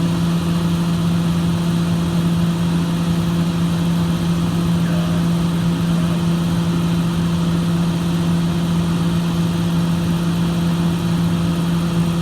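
Excavator's diesel engine running steadily with an even, unchanging hum.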